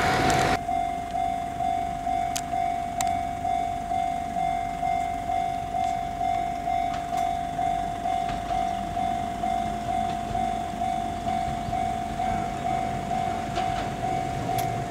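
Japanese railway level-crossing warning bell ringing steadily, about two strikes a second, as a Kintetsu train approaches.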